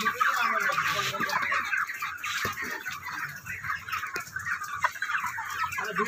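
A large flock of broiler chickens clucking, a steady chatter of many short calls overlapping at once.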